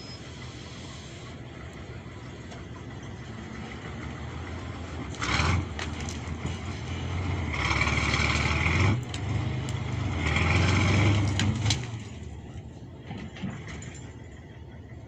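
Diesel engine of a Kirovets K-701 tractor running steadily, with louder surges about five seconds in, around eight seconds, and again from about ten to twelve seconds.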